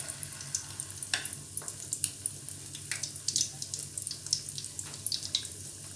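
Flour-coated chicken pieces frying in hot oil in a pan: a steady sizzle broken by frequent sharp crackles and pops.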